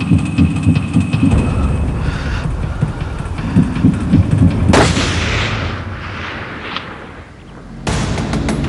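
A single loud gunshot bang about five seconds in, with a long echoing decay, following a low pulsing, heartbeat-like beat. Near the end a steady louder sound cuts in abruptly.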